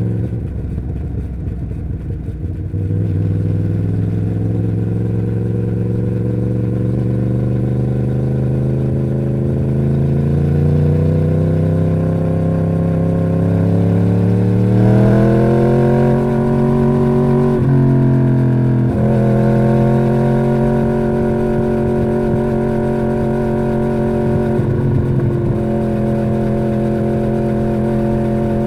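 2011 Yamaha YZF-R1's crossplane-crank inline-four running through the stock exhaust. Engine speed creeps up slowly, rises sharply about halfway through, dips briefly twice, then holds steady at a higher pitch.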